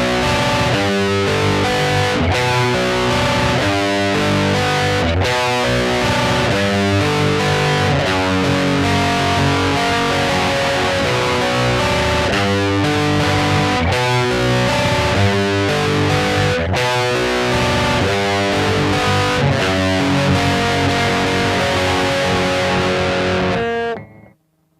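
Distorted electric guitar playing a 90s rock intro or solo, loud and steady, then stopping abruptly about a second before the end.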